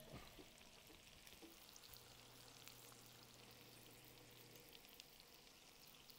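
Roast chicken and potatoes sizzling faintly in a hot cast-iron skillet fresh from the oven: a soft steady hiss with scattered small crackles.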